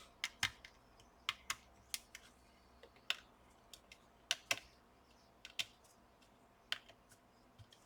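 Irregular small sharp clicks and taps, a dozen or so spread unevenly, from hands and a small screwdriver working on an open laptop's chassis and parts during reassembly.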